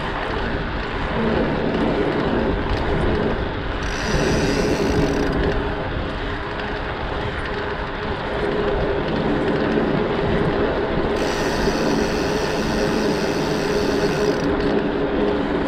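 Dirt jump bike being ridden: steady rolling and wind noise, with the rear hub's freewheel ticking rapidly while coasting, briefly about four seconds in and again from about eleven to fourteen and a half seconds.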